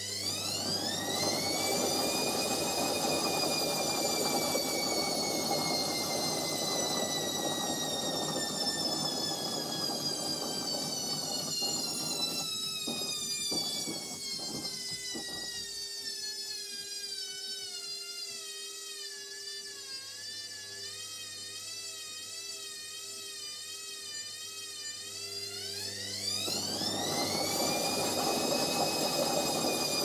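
Indesit front-loading washing machine on its spin cycle. The motor whine rises sharply as the drum speeds up, then slowly falls and wavers as the drum slows. A rushing hum under the whine fades out about halfway, and about 26 seconds in the whine climbs sharply again with the hum as the drum speeds up once more.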